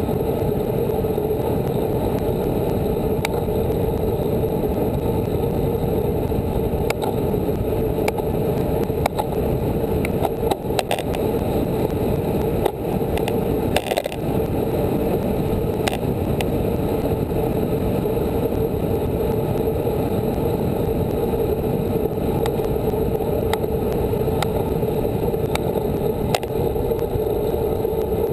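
Steady rushing of wind and tyre noise from a road bicycle at speed, picked up by a handlebar-mounted camera, with a few scattered ticks from bumps in the road.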